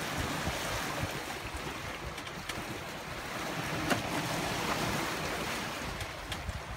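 Steady rush of wind and sea waves around a boat, with wind buffeting the microphone; a single sharp click about four seconds in.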